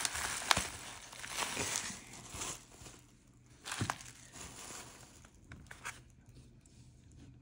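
Plastic bubble wrap crinkling and crackling as it is pulled off a boxed knife, with a sharp click about half a second in. The crinkling dies down after about two and a half seconds; a single soft knock follows near the middle, then quieter handling of the cardboard box.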